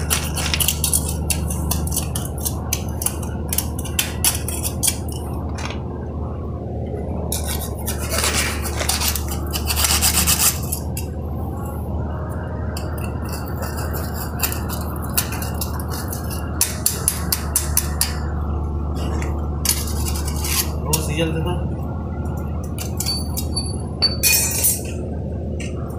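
Stick (SMAW) welding arc crackling irregularly on a P91 alloy-steel pipe joint, over a steady low hum.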